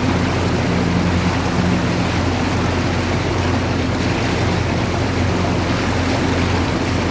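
Boat engine running steadily at an even pitch, with wind and water rushing over it.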